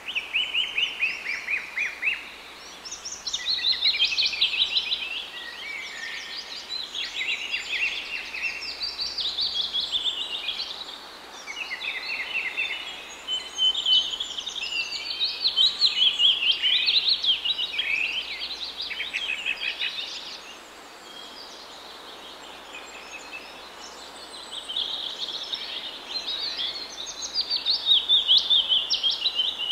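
Several birds chirping and singing together in a dense chorus of rapid, high, repeated notes that swell and fade in waves, with a quieter stretch about two-thirds of the way in.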